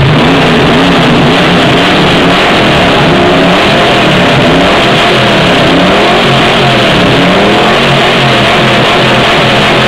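Ford Maverick GT's V8 engine being revved up and down again and again, loud throughout.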